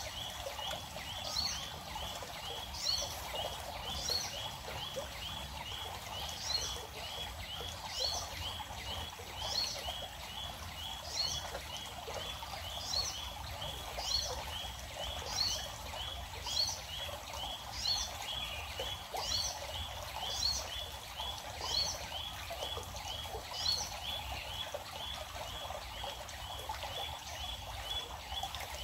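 Birds chirping steadily: a fast, even run of short high chirps, about two or three a second, with a higher call breaking in every second or two, over the steady rush of a small stream.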